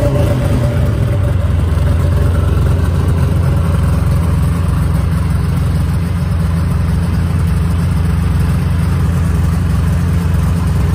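2004 Yamaha SX Viper S's 700 cc three-cylinder two-stroke engine idling steadily through an aftermarket Bender pipe, still cold just after a cold start.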